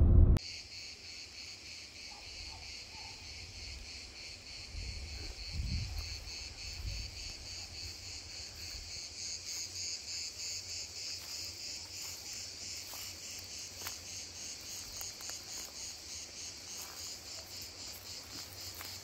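Crickets chirping in a steady, finely pulsed chorus. A few low thumps sound about five to seven seconds in.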